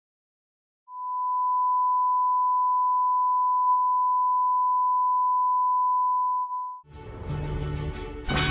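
Steady single-pitch test tone, the reference tone that goes with colour bars, starting about a second in and held unchanged for about six seconds before cutting off. Theme music then starts near the end.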